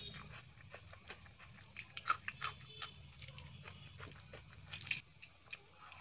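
Close-up chewing and wet lip smacks of a person eating dal and rice with their fingers: a string of short smacks and clicks, with a few louder ones about two seconds in and again near the end.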